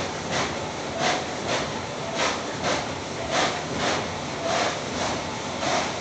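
TEPO-AUTO TP-1201-1 tunnel car wash machine running: a steady hiss of water spray with a rhythmic swishing that comes in pairs, about once a second.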